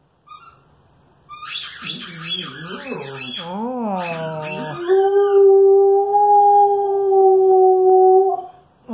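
Alaskan Malamute squeezing a squeaky toy and howling along with it. A few high toy squeaks come first, then a wavering moan that rises and falls in pitch. From about halfway, one long steady howl is held for about three seconds, sounding a little hoarse.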